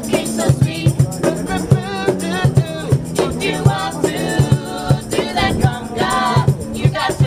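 Street buskers performing: several women's voices singing together over acoustic guitar, with a steady beat of low thumps.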